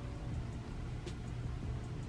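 A steady low hum with a faint tick about every one and a half seconds.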